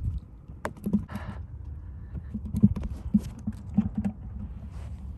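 Irregular clicks and light knocks of fishing tackle and handling while a hooked sheepshead is brought to the side of a small boat.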